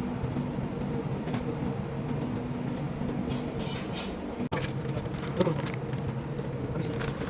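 A steady low hum with a few level tones, broken by a very short gap about four and a half seconds in.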